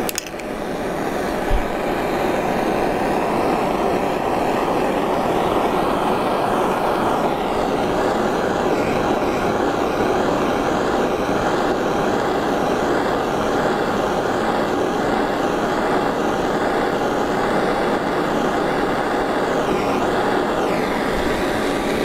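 Butane torch flame hissing steadily as it heats a silver ring and paste solder until the solder flows, with one brief knock about a second and a half in.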